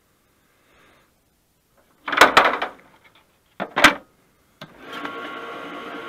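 Two short bursts of handling noise, then, about two-thirds of the way through, the AFM80ST automatic postage stamp applier starts up and runs with a steady mechanical hum.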